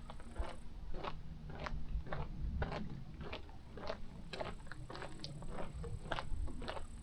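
Footsteps of a person walking at a steady pace, about two steps a second, each step a short sharp crunch, over a low rumble.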